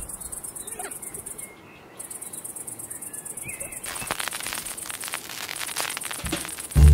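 Outdoor ambience of crickets chirring with a few short bird calls. From about four seconds in, the dense crackle and hiss of a horn gramophone's steel needle riding a spinning shellac 78 record, growing stronger until music starts at the very end.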